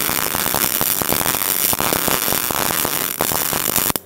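MIG welding arc crackling steadily as a bead is pushed along 15 mm thick steel plate, then cutting off suddenly near the end when the torch trigger is released.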